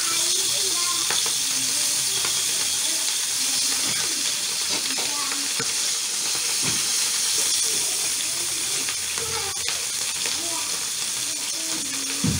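Pabda fish shallow-frying in hot oil in a non-stick pan, with a steady sizzle. There are a few light knocks, the clearest near the end.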